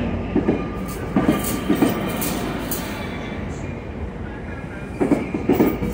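Trinity Railway Express bilevel passenger cars rolling slowly past, a steady rumble with the wheels clicking over rail joints, a few scattered clicks and then a louder cluster near the end.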